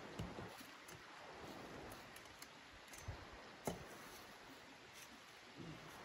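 A few faint knocks and rustles from a folding camp chair being handled and set down on dry leaf litter, the sharpest knock just past halfway, over a faint steady background hiss.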